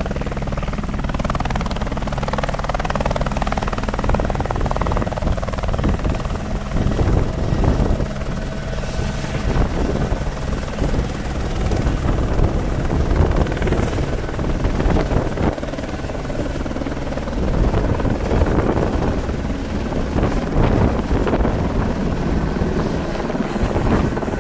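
Helicopter lifting off and climbing away: steady rotor thudding under a thin, high, steady whine.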